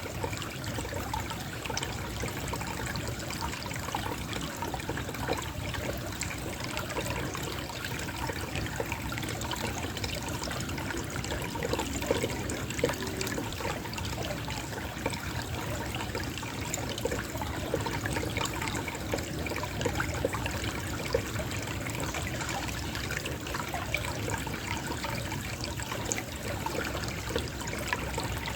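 Small water flow trickling and burbling steadily. About two-thirds of the way through, a few short sharp taps stand out: an acorn dropping and rolling.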